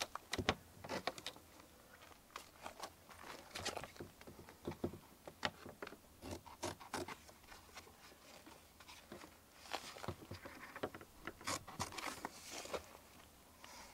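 Scissors snipping through heavy RV skirting fabric, with the stiff sheet rustling and scraping as it is held and pulled: a string of short, irregular snips and crinkles.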